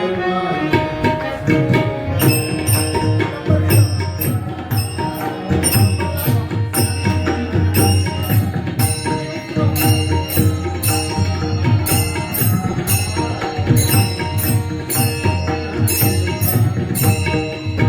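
Kirtan music without singing: tabla over sustained instrumental tones, joined about two seconds in by a steady beat of sharp, bright high strokes.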